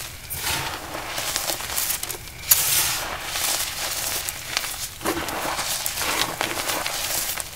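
Compressed powder blocks crunching and crumbling as they are crushed, in a run of crackly crunches, with one sharp snap about two and a half seconds in.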